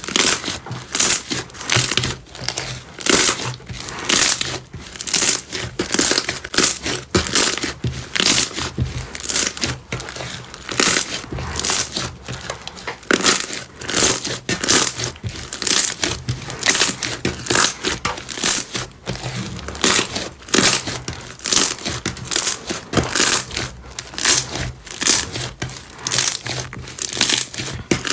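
Slime being squeezed, stretched and pressed by hand, giving a run of wet crackling and popping pops, several a second.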